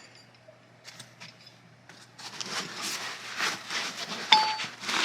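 Metal camera-mount parts being handled: a run of rustling and scraping, then about four seconds in a single sharp metallic clink that rings briefly as one part knocks against another.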